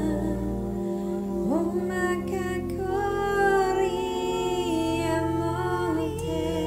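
Meditation music of layered, sustained drone tones with wordless 'light language' singing or humming over them; one voice slides upward in pitch about a second and a half in, and held, gently shifting vocal notes follow.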